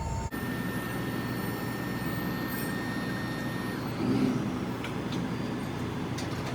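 Vehicle engine running steadily, with a brief louder swell about four seconds in.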